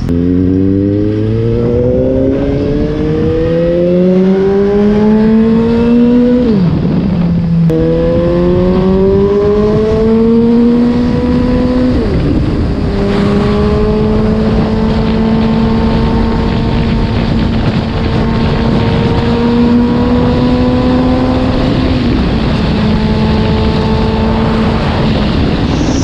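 Suzuki GSX-S750's inline-four engine accelerating hard from a standstill: the revs climb, drop at a gear change about six seconds in, climb again and drop at another shift about twelve seconds in, then hold almost steady at highway cruise. Steady wind rush runs underneath.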